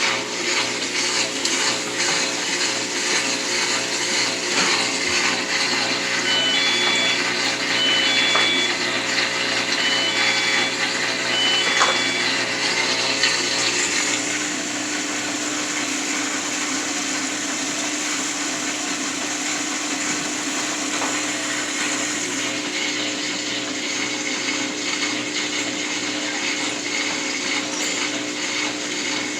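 Washing machine running a drain and spin: a steady motor and pump whir with water noise. The hum shifts in pitch about halfway through, and a few faint short high beeps sound before that.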